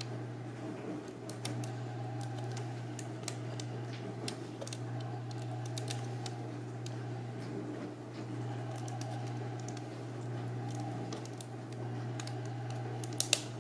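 Small, irregular clicks and light scratching as fingers and a thin metal tool work at the edge of a laptop LCD panel by its ribbon connector, over a steady low hum.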